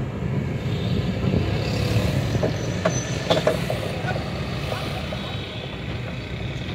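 A steady low rumble, with a few sharp clicks and knocks a little past the middle as a wooden spatula strikes and scrapes a metal wok.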